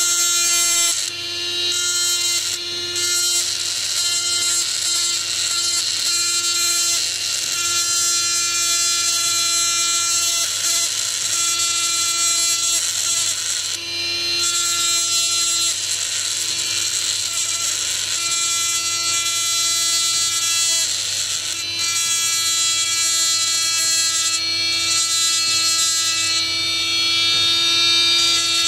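Handheld electric mini grinder (rotary tool) with a small ball burr, running at a steady high-pitched whine while it grinds down a glued eMMC chip on a circuit board. The bit is worked slowly so as not to cut the board's traces.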